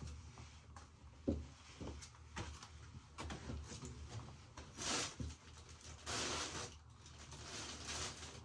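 Front-loading washing machine tumbling a load: irregular soft thuds and clunks from the drum, with water swishing twice, about five seconds in and again a second later.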